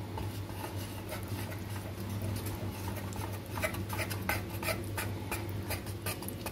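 Wire whisk stirring a flour-and-water slurry in a glass bowl, its wires clicking irregularly against the glass several times a second, over a low steady hum.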